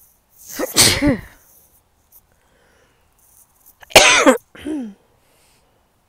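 A woman sneezing twice, about three seconds apart. Each sneeze ends in a voiced cry that falls in pitch, and the second is sharper and louder. These are allergy sneezes set off by blooming sweet peas, which the uploader says make her sneezy.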